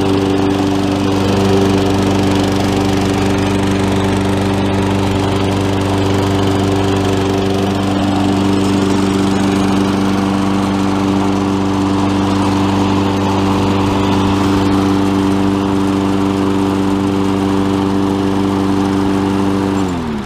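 1990 Rally BP75AR lawnmower's 5 hp Briggs & Stratton Quantum single-cylinder four-stroke engine running at a steady speed, then shut off near the end, its pitch dropping as it winds down.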